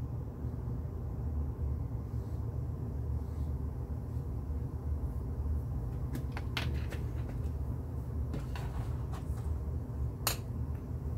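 Light clicks and taps of a plastic paint palette and brush being handled and set down on a table: a quick run of clicks about six seconds in and one sharper click near the end, over a steady low rumble.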